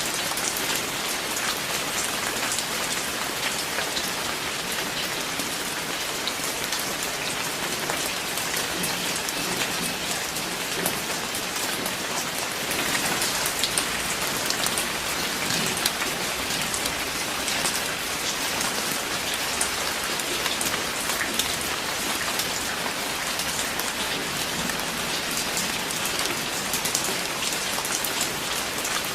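Steady rain, a dense even patter of many drops hitting a surface.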